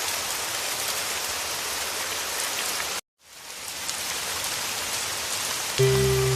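Heavy rain falling steadily, a dense hiss with fine drop patter. About three seconds in it cuts out for a moment and fades back in, as at a loop join. Soft sustained music comes in near the end.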